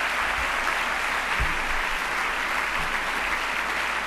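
Audience applauding steadily with dense, even clapping.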